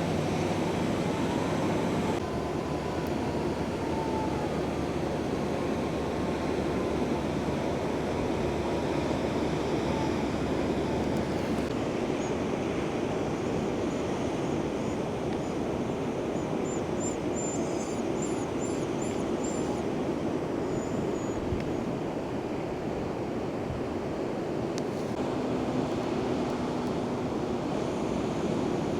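Steady roar of ocean surf, with a few faint high chirps in the middle.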